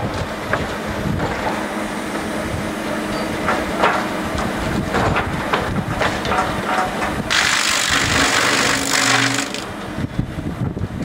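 Butt end reducer and hydraulic log crane running: a steady machine hum with scattered knocks and clunks as the grapple sets a log onto the infeed rollers. A loud hissing rush lasts about two seconds in the second half.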